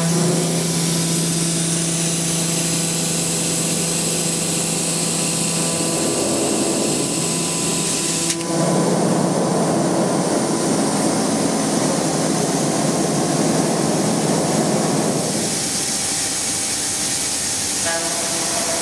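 Milling machine cutting the workpiece: a steady hum over grinding machining noise. About eight seconds in it breaks off abruptly and turns rougher and noisier, easing a little near the end.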